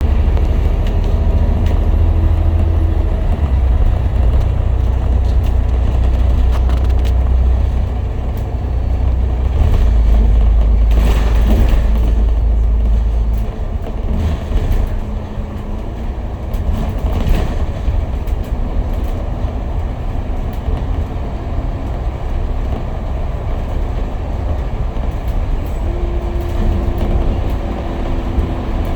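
A Citybus bus driving: steady low engine drone and road noise, heavier for roughly the first half and then easing off. There are a couple of brief whooshing swells and small rattles along the way.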